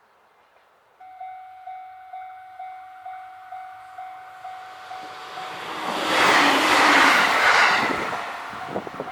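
A level crossing's electronic warning bell starts ringing about a second in, a steady ding about twice a second. Then an EH500 electric locomotive hauling a container freight train approaches and passes close by with a loud rush of noise, followed near the end by the rapid clatter of wagon wheels over the rail joints.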